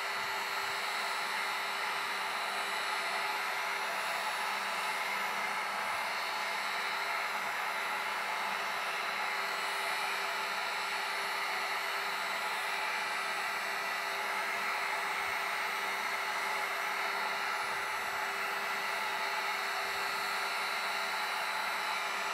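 Electric heat gun running steadily: a constant rush of blown air with a faint steady whine in it, shrinking a plastic wrap onto a battery held over the nozzle.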